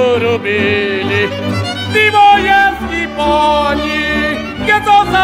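Folk music: a fiddle plays the melody with vibrato over a steady bass accompaniment. This is an instrumental stretch between sung verses.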